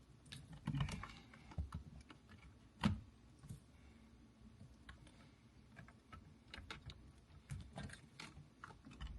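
Scattered small plastic clicks and knocks from wiring-harness connector clips being worked loose in the steering-wheel hub, with one louder knock about three seconds in.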